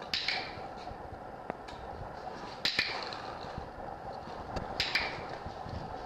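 Dog-training clicker clicking three times, about two seconds apart, each a quick double click. It is used as a marker in clicker (shaping) training of a dog learning to put her paws on a skateboard.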